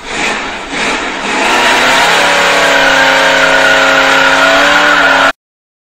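Car engine revving sound effect: a noisy rush, then an engine note that climbs and holds at high revs before cutting off abruptly about five seconds in.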